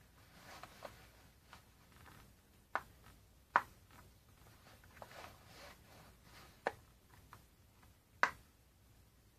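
Soft rustling and four sharp clicks as a latex waist cincher is wrapped around the body and fastened.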